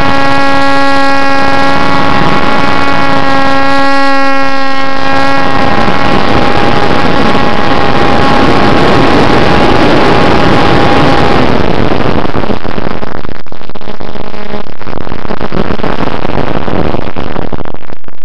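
Electric motor and propeller of a HobbyKing Bixler foam RC plane in flight: a steady whine under heavy wind rush on the airframe. The whine thins out partway through, leaving mostly wind noise, and comes back briefly a few seconds before the end.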